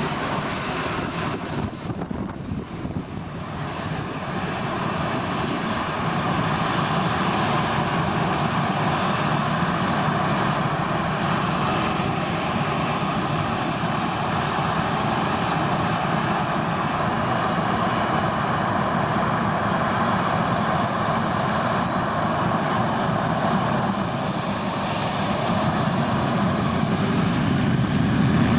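Boeing 737-800's twin CFM56-7B turbofan engines running steadily, briefly quieter about two seconds in and growing louder near the end.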